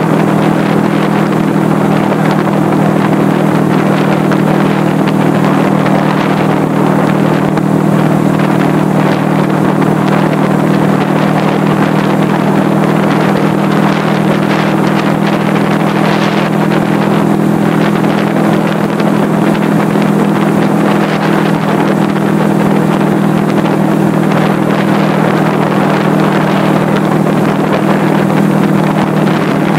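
A 1979 Suzuki GS425L's air-cooled parallel-twin engine running steadily under way, holding an even pitch as the motorcycle cruises at a constant speed, with wind rush over the microphone.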